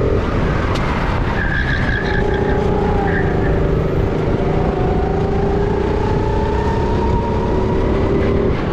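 Sodi RT10 rental kart's engine, heard onboard: it comes off the throttle at the start, there is a short high squeal about one and a half seconds in, and then the engine picks up again about two seconds in and climbs slowly in pitch as the kart accelerates out of the corner.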